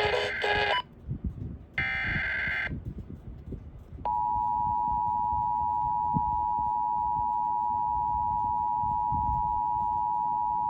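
Emergency Alert System attention signal. It starts with a short burst of buzzy data-header noise, then a steady tone near 1 kHz starts abruptly about four seconds in and holds at an even level. It announces the flash flood warning that follows.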